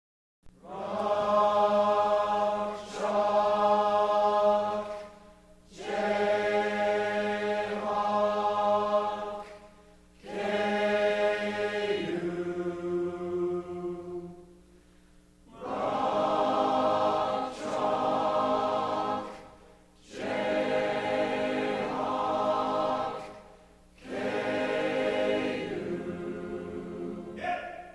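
Choir-like music: long held chords sung or played in six phrases of about four seconds each, with short pauses between them.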